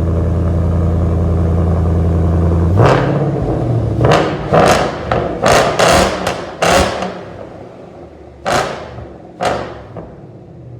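2019 Mustang GT's 5.0 V8, through an aftermarket exhaust with its valves open, idling steadily, then given about ten short, sharp throttle blips from about three seconds in, each rising and dying away quickly.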